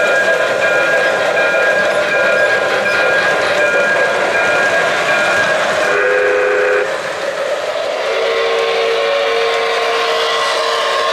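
O-gauge model trains running on three-rail track, with a steady running noise and pulsing high tones. About six seconds in, a model locomotive's sound-system steam whistle sounds a low chord briefly, then again for a longer blast near the end.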